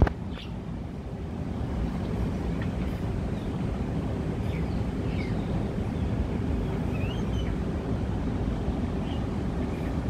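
Steady low background rumble with a few faint, short bird chirps scattered through it, and a sharp click right at the start.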